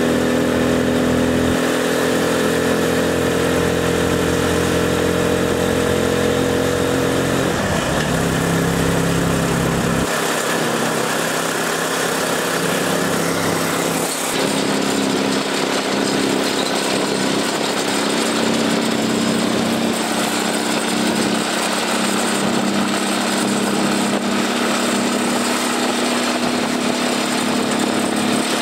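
The 300cc engine of a double-axle motocarguero cargo trike running as it is driven, a steady engine note whose pitch shifts about eight to ten seconds in.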